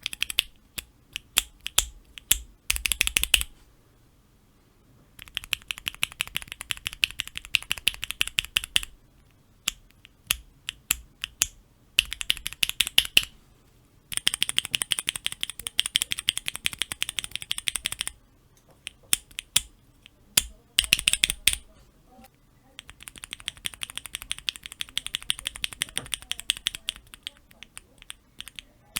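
Cherry MX Black linear mechanical keyboard switches in keychain testers being pressed. Scattered single clacks alternate with three runs of very rapid repeated presses, each lasting a few seconds.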